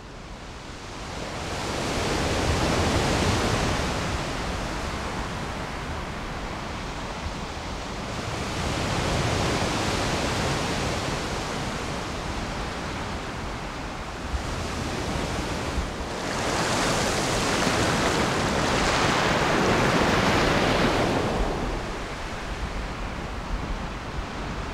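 Sea surf breaking against rocks, a steady wash of noise that fades in at the start and swells in three long surges, with wind.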